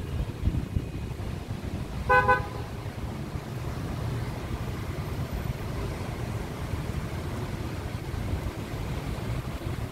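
A car horn gives one short toot about two seconds in, over a steady low rumble of traffic.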